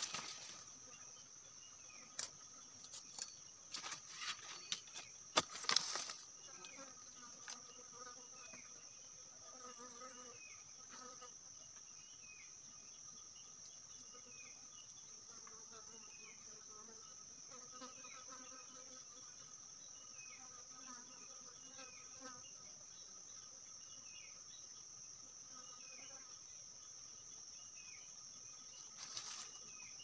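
Steady high-pitched drone of forest insects, with a short chirp repeating about once a second through the middle. In the first six seconds, and again near the end, there are sharp clicks and rustles of bamboo sticks and dry leaves being handled.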